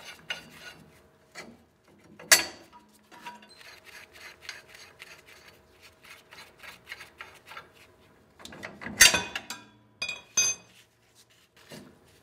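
Leaf-spring U-bolt nuts being spun off their threads by hand, metal scraping and clicking on the threads. Two louder metal clanks come about two seconds in and about nine seconds in, with smaller knocks just after as the loose parts are handled.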